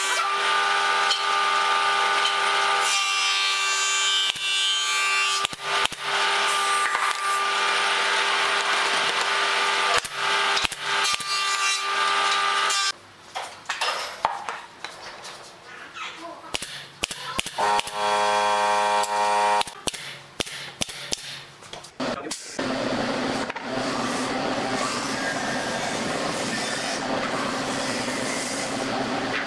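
Woodworking sounds from building a pine frame. A power tool runs with a steady whine for the first half, then scattered knocks of boards being handled, a short tool whine, and a steady noisy hum through the last several seconds.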